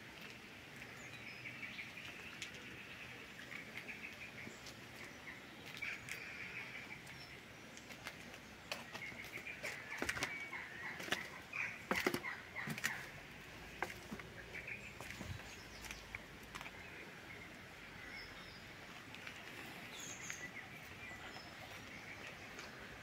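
Birdsong chirping steadily in the background, with a run of sharp clicks and knocks between about nine and thirteen seconds in.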